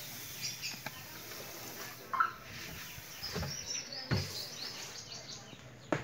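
Dry grain husks poured from a plastic tub into a plastic TV cabinet: a rustling hiss of the husks sliding and landing, with a few sharp knocks. Small birds chirp in the background.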